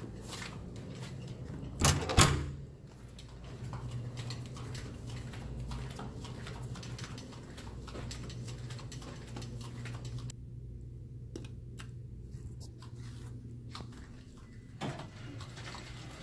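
A room door swings shut and latches with a loud double thud about two seconds in, followed by a steady low hum and faint footsteps on a carpeted corridor.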